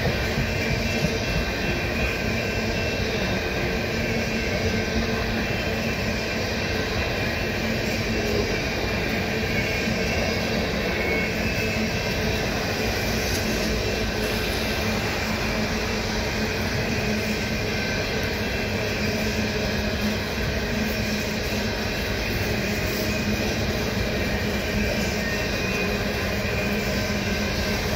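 Coal hopper cars rolling past, their steel wheels running on the rails in a steady, unbroken rolling noise, with a faint steady whine over it.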